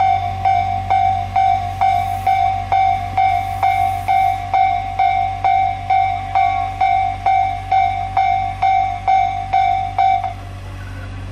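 Japanese railway level-crossing warning alarm ringing in an even, repeating clang of a little over two strikes a second, then stopping abruptly about ten seconds in.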